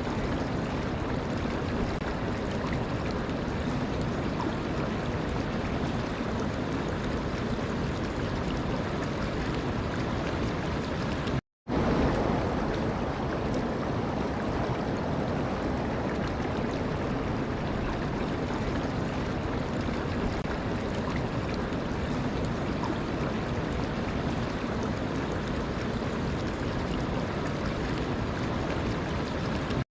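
Steady rush of running water. It breaks off to silence for a split second about eleven seconds in, then resumes a little louder.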